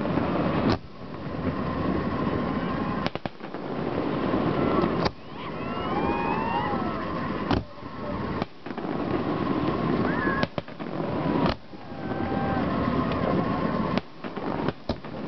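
Aerial fireworks shells bursting, about ten sharp bangs at irregular intervals a second or a few seconds apart, over a continuous noisy background.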